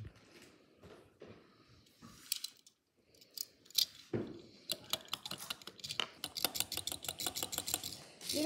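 Small die-cast toy car handled on a granite countertop: scattered light clicks and taps, then a quick run of small ticks from about four seconds in.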